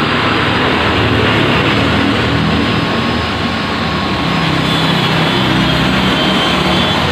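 Steady mechanical hum with a loud, even hiss that does not change.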